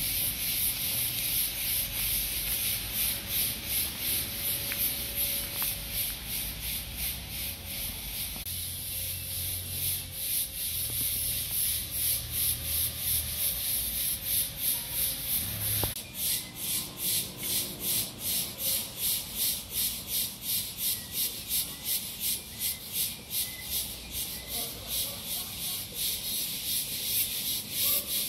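Walking sounds picked up by a handheld phone: a rhythmic scuffing, rubbing hiss about twice a second, in time with the steps, becoming more sharply pulsed about halfway through. A faint low rumble sits underneath.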